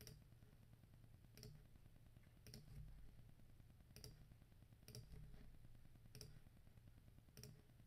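Faint computer mouse-button clicks, about seven of them, roughly one a second, as end points of lines are clicked into place.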